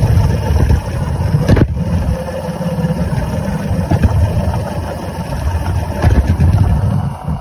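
Miniature live-steam Sentinel DG6 steam wagon running along, heard close from on board: a dense, uneven low rumble with scattered clicks and one sharp knock about a second and a half in.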